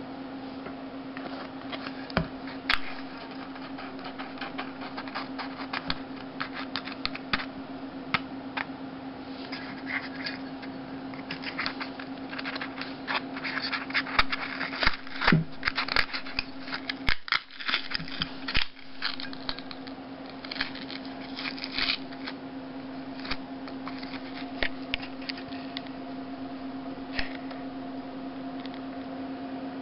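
Hands crackling and tearing the paper cone of an old blown car speaker, with many irregular clicks and crinkles that are busiest through the middle. A steady low hum sits underneath throughout.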